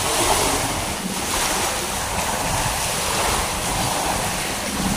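Wind buffeting the microphone over a steady rush of sea water.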